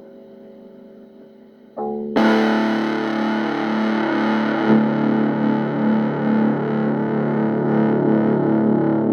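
Music on a distorted electric guitar. A held chord fades out, then about two seconds in a loud distorted chord is struck and rings on.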